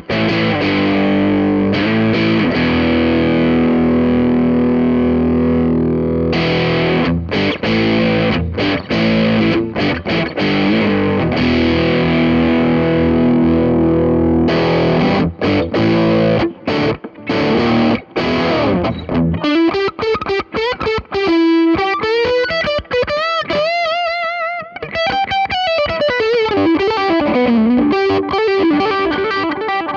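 Distorted electric guitar, an Ibanez RG550 through an MXR Custom Badass '78 Distortion pedal, playing heavy sustained chord riffs with short stops, then switching about two-thirds of the way in to a single-note lead line with vibrato and string bends.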